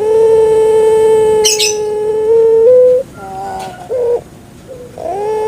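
A puter pelung dove (domestic ringneck dove, Streptopelia risoria) calling: one long, drawn-out note held level for about three seconds and rising slightly at its end, then two short falling notes, and a new long note starting near the end.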